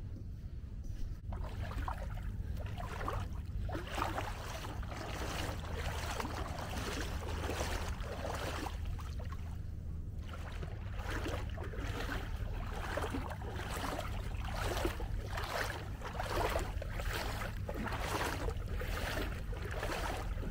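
Kayak paddle strokes splashing in the water in a steady rhythm, about one to two a second, with a short lull about ten seconds in, over a low rumble of wind on the microphone.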